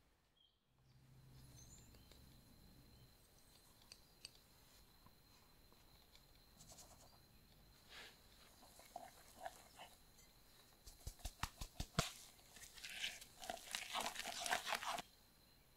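Silicone spatula stirring flour into thick cake batter in a glass bowl: a run of light taps, then scraping and squelching with short squeaks against the glass. It grows busier in the last few seconds and stops suddenly.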